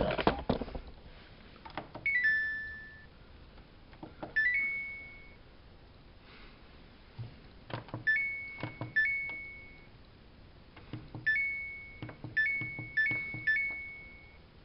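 Samsung WF71284 washing machine's control panel: a button click followed by a short electronic beep chime, about eight times. One falling three-note chime comes about two seconds in, and the later ones are rising two-note chimes, bunched together near the end. A louder knock or rustle comes right at the start.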